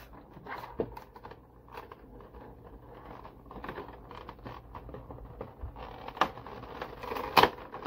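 Clear plastic packaging rustling and crinkling as hands pull the protective plastic wrap off a figure and handle its blister tray, with a few sharper clicks, the loudest near the end.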